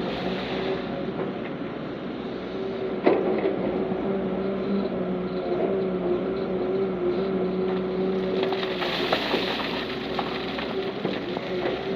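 Heavy diesel earthmoving machinery running steadily at a constant engine pitch, with a single sharp knock about three seconds in.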